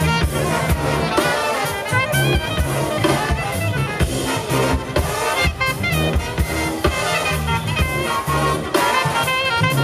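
Live jazz band playing: saxophones and brass carrying the melody over electric bass and drum kit, with a repeating bass line and steady drum beat.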